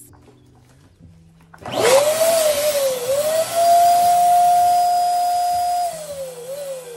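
Electric dual-nozzle balloon pump switching on about two seconds in and blowing air into two large latex balloons at once: a loud rush of air with a motor whine. Near the end the sound drops in level and the whine slides lower in pitch.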